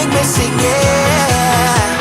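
Pop music with a steady drum beat and a held melody line.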